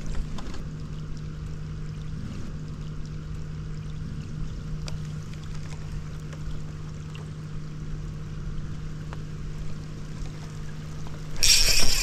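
Steady low electric hum, typical of a bow-mounted trolling motor holding the boat in place, with a few faint ticks. About a second before the end, a sudden loud rustling noise as the body-worn camera is jolted when the angler sets the hook, and the hum is lost under it.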